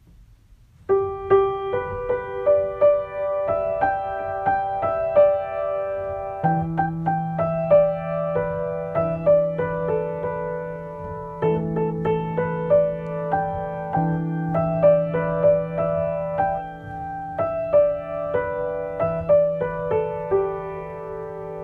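Solo piano improvisation: a melody of single notes over held bass notes, starting about a second in.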